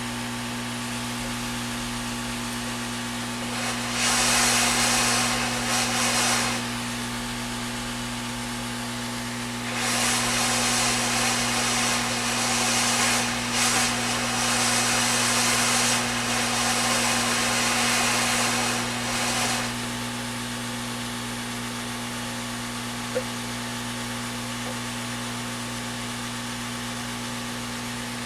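Steady electrical hum on a repair bench, with two stretches of scratchy hiss: a short one about four seconds in and a longer one from about ten to nearly twenty seconds in. There is one short click a few seconds later.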